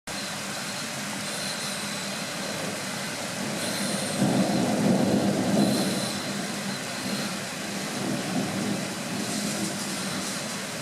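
Thunder from a small summer thunderstorm: a low rumble that swells about four seconds in and dies away by about seven, over a steady hiss.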